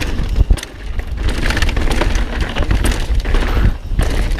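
Mountain bike riding fast down a rough dirt trail: tyres crunching over dirt and rocks with many sharp knocks and rattles from the bike over the bumps, over a steady low rumble of wind on the microphone.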